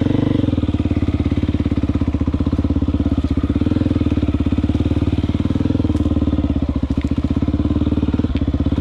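Motorcycle engine running steadily at low, even revs, with a fast regular pulsing.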